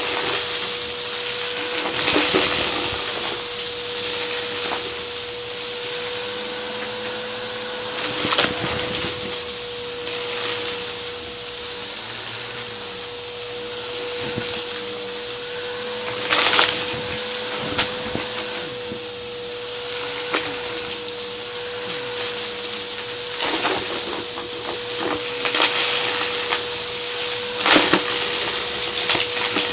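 Vacuum cleaner running steadily with a constant motor whine and rushing air. Several short bursts of rattling come through as crunchy debris is sucked up.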